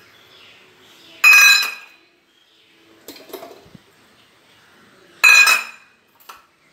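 Metal kitchenware clanking while a mixer-grinder jar is loaded with ingredients: two loud ringing clangs about four seconds apart, with lighter clinks and taps between them.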